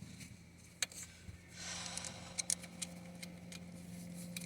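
A few faint, sharp clicks and ticks of hand tools or parts being handled, over a low steady hum.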